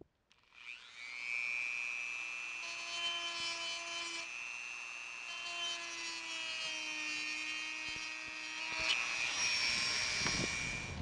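Dremel rotary tool with a burr bit spinning up with a rising whine about half a second in, then running at a steady high pitch. Near the end the sound turns harsher and louder. It is being used to grind out hairline cracks in a fibreglass boat's gel coat.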